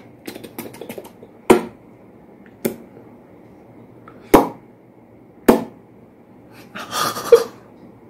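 Sharp clicks and smacks at a woman's mouth as an Alexandrine parakeet nibbles at her lips: about five crisp clicks spread a second or so apart, with softer ticks between them. A short breathy hiss comes near the end.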